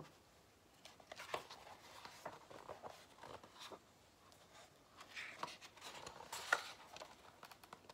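Pages of a hardcover picture book being turned and handled: faint paper rustling with soft clicks, busiest about five to seven seconds in.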